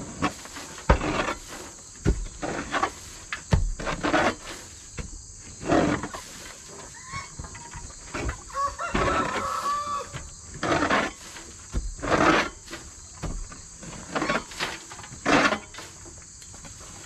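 Chickens clucking in short calls, with a rooster crowing once about halfway through.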